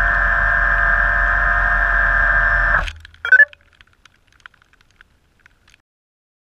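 Blade 350 QX quadcopter's electric motors and propellers whirring steadily at low throttle on the ground after landing, heard from the camera on the aircraft. The motors cut off suddenly about three seconds in. A brief loud sound with a short tone follows, then a few faint ticks.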